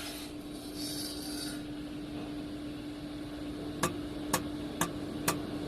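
Woodworking machine running with a steady hum, with a light rubbing, rasping sound of wood in the first second or so. Near the end come four sharp ticks about half a second apart.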